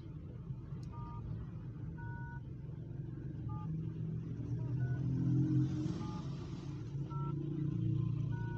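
Keypad tones of a 2017 Nokia 3310 as the factory-reset code *#7370# is keyed in: seven short two-note beeps about a second apart, a different pair of notes for each key. A low rumble runs underneath, swelling about halfway through and again near the end.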